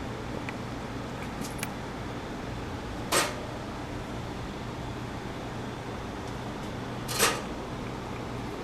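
Steady low electrical hum of room noise, with two brief hissing noises about four seconds apart, near three and seven seconds in.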